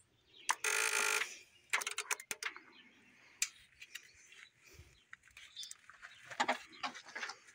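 A short squeal about a second in, then scattered metal clicks and knocks as parts around a truck's engine bay are handled; the engine is not running.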